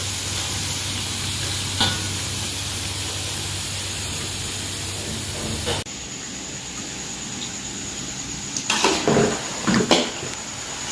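Kuih siput dough pieces deep-frying in hot oil in a wok: a steady sizzle, with a spatula clink about two seconds in. The sound drops and changes abruptly just before six seconds, and a few sharp knocks and clatters follow near the end.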